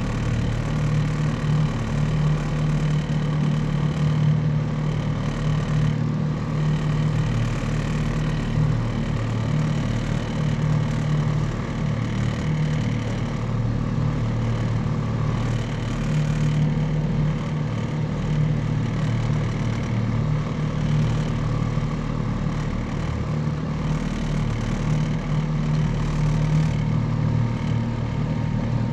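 Boat engine running steadily while the boat is under way, an even low hum.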